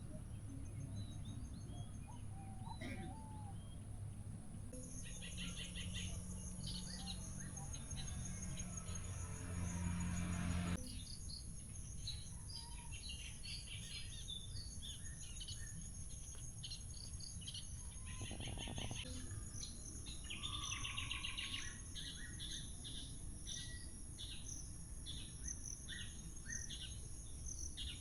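Countryside ambience: a steady high-pitched insect drone with many short bird chirps over a low rumble. The mix changes abruptly twice, about five and eleven seconds in.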